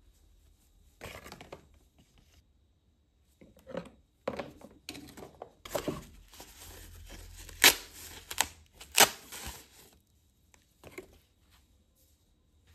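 A grey plastic packaging bag being handled and torn open by gloved hands: irregular crinkling and rustling, with two sharp, loud crackles in the middle.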